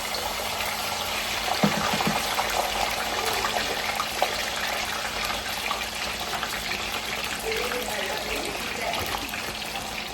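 Fish frying in hot oil: a steady, dense sizzle with fine crackling, and a few short knocks about two seconds in.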